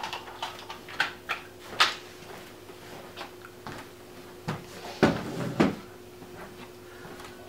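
Plastic clicks and clunks of a Bugaboo Cameleon3 stroller seat being unclipped and lifted off its frame, followed by two louder thuds about five seconds in, over a faint steady hum.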